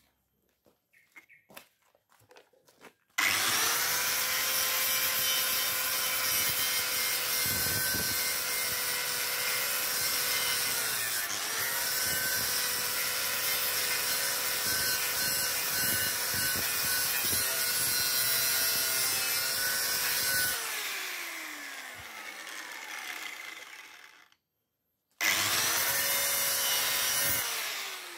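Angle grinder cleaning rust off the steel of a square tube: a steady motor whine under a grinding noise, dipping in pitch once partway through. The grinder is switched off and winds down with a falling whine, then a short second burst also winds down near the end.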